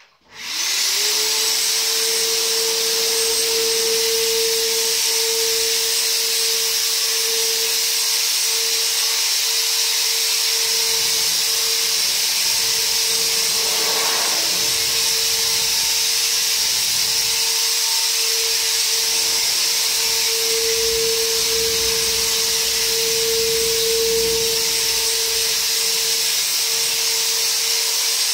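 Handheld corded electric insecticide sprayer switching on, its motor rising quickly in pitch, then running steadily with a whine and an airy hiss while spraying.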